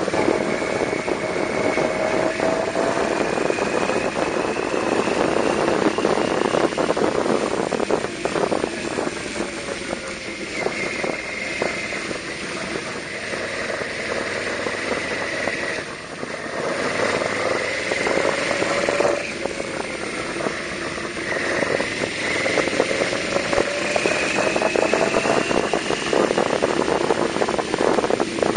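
Yamaha VMAX 1200's V4 engine heard from the rider's seat while riding, its pitch rising several times as the throttle opens and dropping back between, with a brief drop in loudness about two-thirds of the way through, as at a gear change or easing off.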